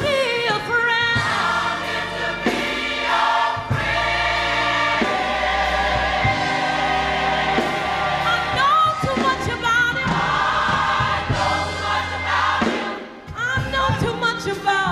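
Gospel choir singing held harmonies over a steady band accompaniment.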